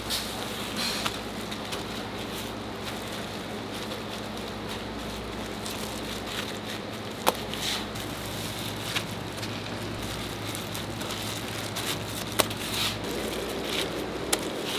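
Gimbap being rolled by hand on a bamboo mat: a few sharp clicks and taps from the bamboo slats and plastic-gloved hands, over a steady hiss and low hum of kitchen background.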